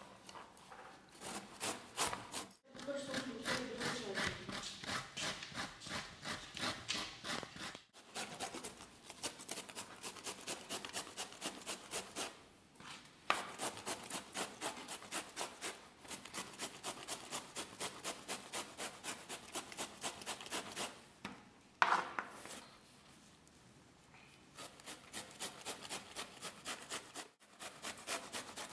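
Peeled bottle gourd (kaddu) rasped up and down a steel box grater in quick, even strokes, about three a second, in runs broken by short pauses. There is a single sharp knock a little past the middle.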